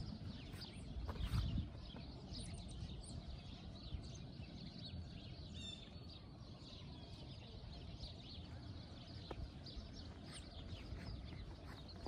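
Outdoor ambience: a steady low rumble with scattered faint clicks and a short bird chirp about six seconds in.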